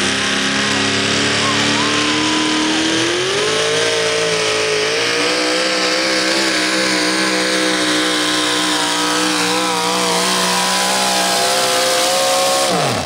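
Supercharged engine of a Pro Modified four-wheel-drive pulling truck at full throttle under load, dragging a pulling sled down the track. The pitch climbs about three to four seconds in and then holds high; near the end the engine is shut off and its pitch drops away sharply.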